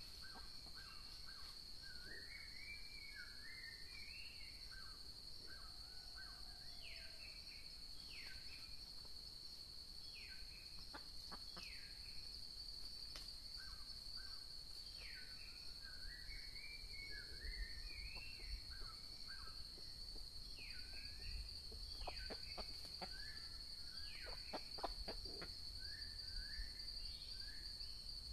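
Steady high-pitched insect drone with small birds chirping in short falling notes throughout. A run of short clicks comes about three-quarters of the way in.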